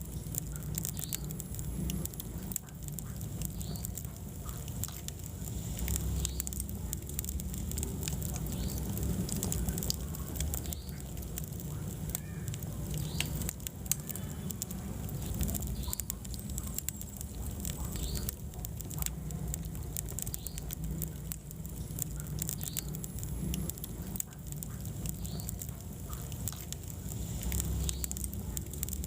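Wood fire in a fireplace crackling, with frequent small pops and snaps, one sharper pop about halfway through, over a steady low rumble of the burning.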